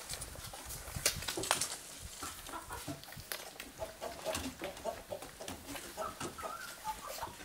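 Puppies suckling from a lying dog, with rapid wet smacking clicks throughout. Short, repeated low clucking calls join in from about two seconds on.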